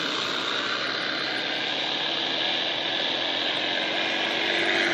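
Radio-controlled scale T-28 model airplane in flight, a steady propeller-and-engine drone that grows slightly louder near the end.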